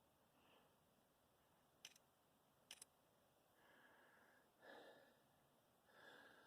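Near silence: two faint clicks close together about two seconds in, then soft breathing from the person holding the camera in the second half.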